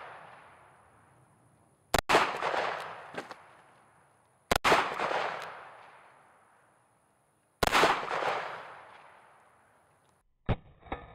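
Smith & Wesson .44 Magnum revolver fired three times, a few seconds apart, each loud shot echoing and dying away over about two seconds. Near the end the sound cuts to something quieter with a couple of faint clicks.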